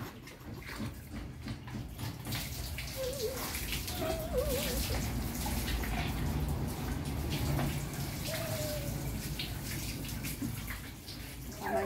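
Water poured from a plastic scoop over a small dog during its bath, splashing and trickling off its wet fur, with a few faint short whines.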